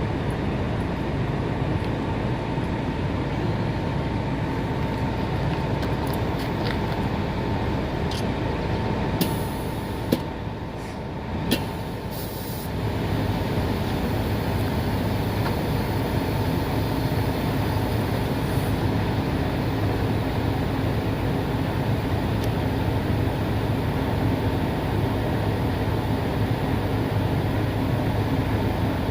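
Diesel truck engine running steadily at idle, with a few light clicks and taps in the first half; the low hum grows stronger about halfway through.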